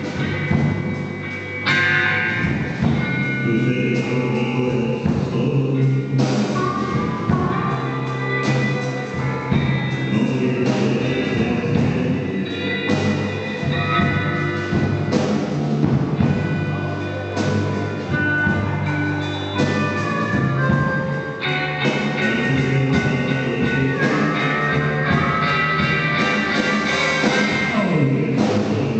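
Blues-rock band playing, with drums, a bass line and singing.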